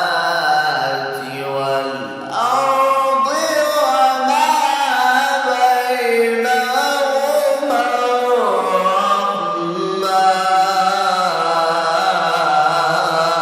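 A male Qur'an reciter chanting solo in the melodic mujawwad style, holding long ornamented notes that glide up and down.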